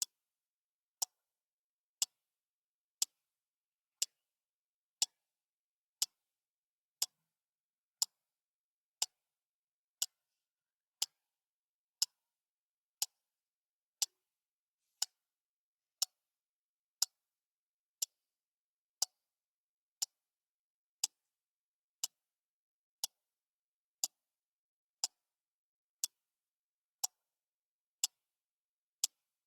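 Clock ticking steadily once a second: single sharp, bright ticks of even strength with silence between them.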